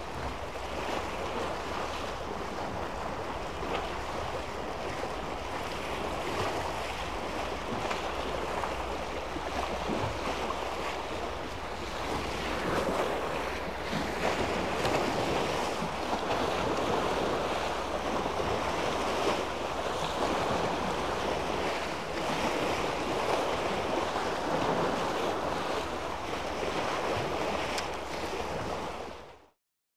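Sea waves washing against a concrete tetrapod breakwater, with wind on the microphone; the wash rises and falls in level, then cuts off abruptly near the end.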